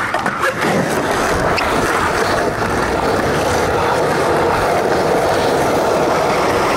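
Steady, close-up rolling noise of skateboard wheels on concrete, with a few faint clacks near the start.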